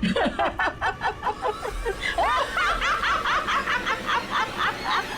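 High-pitched laughter: a long run of short rapid ha-ha pulses, about four a second.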